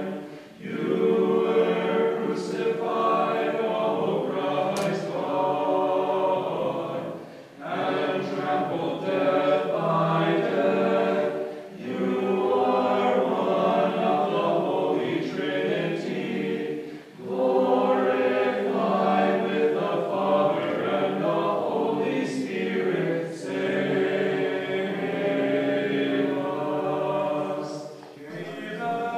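Many voices sing a Ukrainian Catholic liturgical chant without accompaniment. They sing in long sustained phrases, each several seconds long, with a short break between them.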